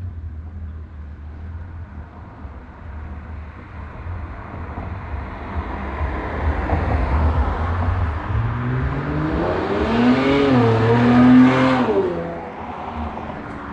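Infiniti Q50 Red Sport's twin-turbo V6, fitted with a Helmholtz exhaust, accelerating hard past at full throttle. Its exhaust note climbs in pitch as it comes on and is loudest about eleven seconds in. It then drops suddenly in pitch and fades as the car goes past and away.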